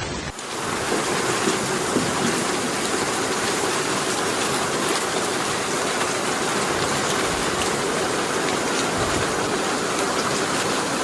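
Steady, dense rush of water noise with a fine crackle, starting abruptly at a cut, from heavy flowing water or pouring rain.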